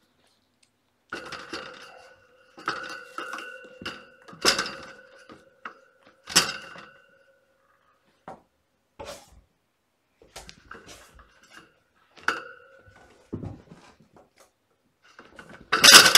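Kittens knocking a toy about: irregular ringing clinks and rattles, like a small metal object being struck, with the loudest flurry near the end.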